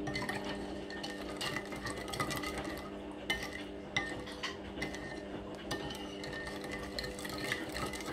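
A metal spoon stirring thin barbecue sauce in a ceramic bowl, with irregular clinks of the spoon against the bowl. A steady hum runs underneath.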